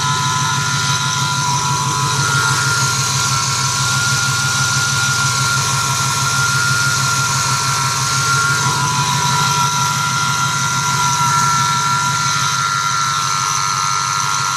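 A 2008 Ford F-150's 4.6-litre V8 idling under the hood with a steady, high-pitched whine over the engine note. The owner suspects the whine comes from the idler pulleys.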